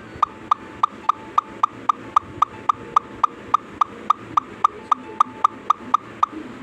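A rapid, evenly spaced series of short pitched pops, a funny sound effect, about four a second over a faint steady tone; they stop shortly before the end.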